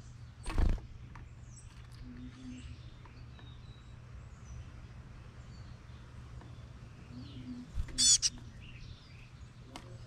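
Birds chirping with many short faint calls, and one much louder call about eight seconds in. A short thump comes just after the start.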